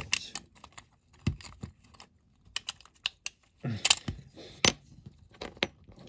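Irregular light clicks and taps of a Dinky Toys Rolls Royce Phantom V die-cast model body, with its loose metal doors and plastic interior, being worked by fingers as a door is prised out. The loudest click comes a little over four and a half seconds in.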